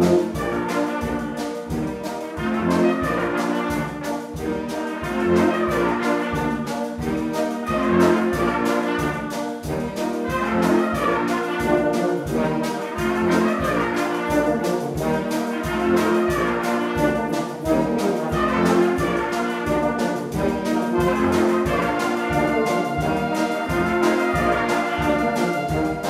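A brass and wind band playing live: tubas and trumpets over a steady drum-kit beat.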